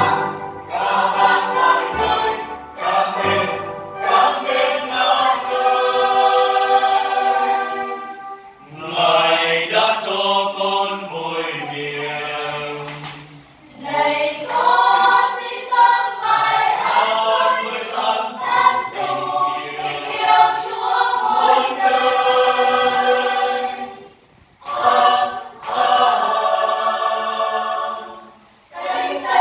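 Mixed church choir of men and women singing a hymn together during a rehearsal, in sustained phrases broken by brief pauses about a third of the way in, near the middle, and twice near the end.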